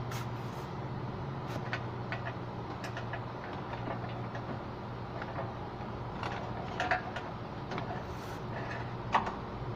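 Scattered clicks and knocks as a car's radiator assembly with its electric cooling fan is worked loose and pulled from the front of the car, over a steady low hum.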